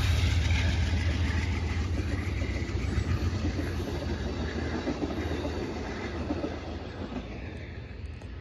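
Amtrak passenger train passing close by: diesel locomotive rumble and the clatter of wheels on the rails, fading steadily as the train moves away.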